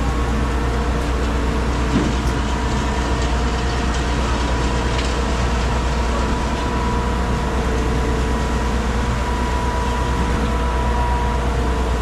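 57-metre Alliance concrete boom pump running: a steady diesel engine drone with a constant whine from its hydraulics.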